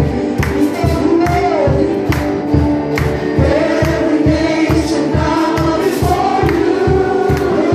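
Live gospel praise-and-worship band: a group of lead and backing singers over keyboard, guitar and drums, with a steady beat.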